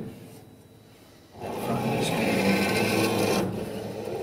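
A 3D printer's gantry and print-head carriage pushed by hand along its linear rails, a steady rolling, rubbing sound that starts after a brief quiet moment, lasts about two seconds, then goes on fainter.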